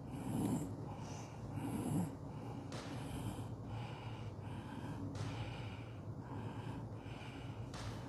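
Audible breathing and sniffing close to the microphone, in short hissy puffs repeating every second or so, over a low steady hum.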